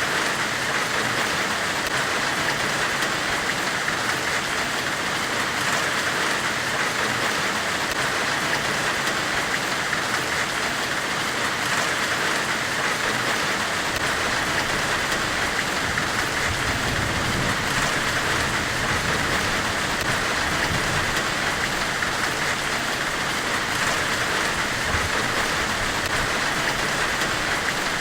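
Steady hiss of a blacksmith's forge weld, an even rain-like noise with no pauses. A low rumble swells briefly a little past the middle.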